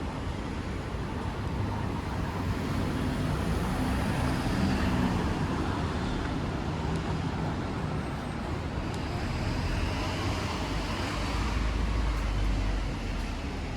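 Road traffic passing over a level crossing: vehicle engines and tyres, with a deeper rumble near the end as a heavier vehicle goes by.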